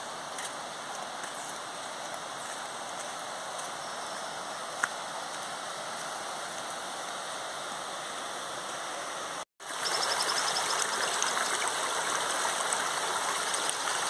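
Steady rush of a forest waterfall and its rocky stream, louder after a short sudden gap about nine and a half seconds in. A single sharp click about five seconds in.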